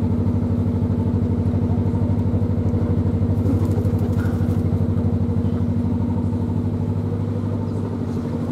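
A narrowboat's diesel engine running steadily at cruising speed, with an even rapid beat, easing slightly near the end.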